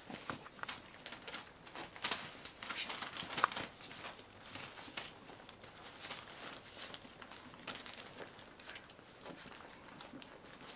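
Newspaper bedding rustling and crinkling under a Pembroke Welsh Corgi mother and her puppy as they play on it, in short irregular scrapes, busiest a couple of seconds in.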